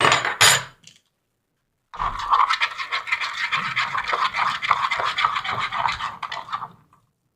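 Slime ingredients being mixed in a container: a rapid, continuous scraping and rattling that starts about two seconds in and runs for about five seconds before stopping.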